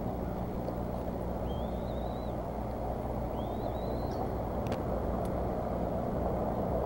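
Steady low rumble of distant road traffic with a faint hum, and two short, thin rising chirps a little over a second apart.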